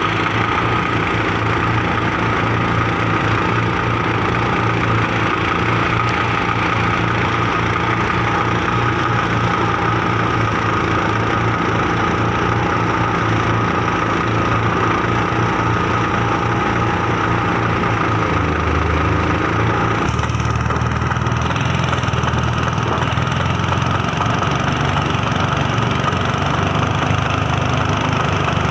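New diesel engine running steadily under a rice threshing machine. Its low drone changes about eighteen to twenty seconds in.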